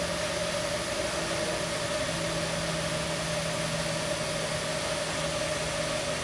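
TIG welding arc on thin stainless steel at about 45 amps: a steady hiss with a constant hum underneath.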